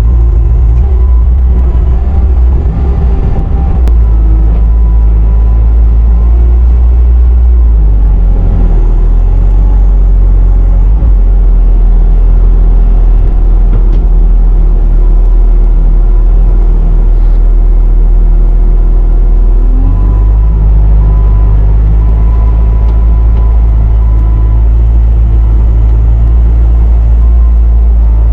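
Bobcat T650 compact track loader's diesel engine running, loud and steady. Its note drops about 8 seconds in and rises again about 20 seconds in as the machine works.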